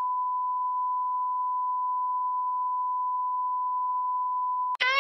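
A continuous electronic beep: one pure, steady tone at about 1 kHz, the classic censor-bleep or test tone. It cuts off abruptly near the end, as music starts with a click and a bending, pitched note.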